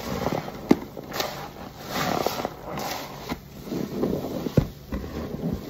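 Perforated car wash sponges soaked in laundry-detergent foam, squeezed and kneaded by gloved hands: wet squelching and crackling of suds in irregular surges, with a couple of sharp pops.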